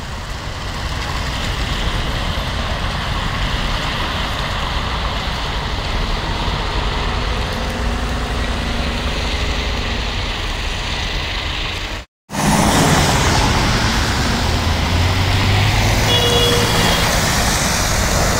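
City buses driving past on a wet, slushy street: engines running and tyres hissing on the wet road. The clip cuts about twelve seconds in, and the second bus passes closer and louder.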